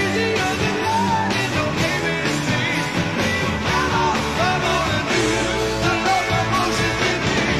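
Live rock band playing, with electric guitar, drums and singing.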